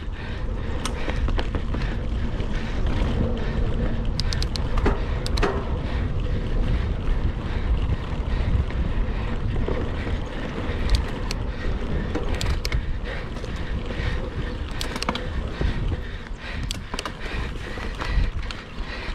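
Mountain bike riding fast over a dirt trail: steady wind buffeting on the camera microphone and rumble from the tyres, with scattered sharp clicks and rattles over rough ground.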